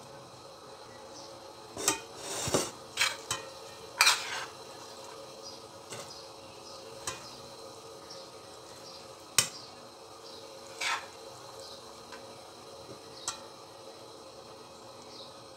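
A metal serving spoon scooping salad and knocking and scraping against a metal pan and an enamel pot: about ten separate clinks and short scrapes, spaced irregularly.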